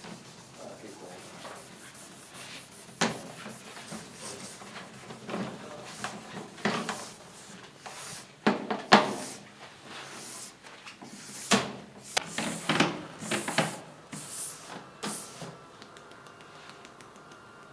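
Cross-country skis and waxing tools being handled at a metal waxing bench: irregular sharp knocks and clicks against the bench, mixed with short scraping and rubbing strokes of kick-wax work on the ski bases.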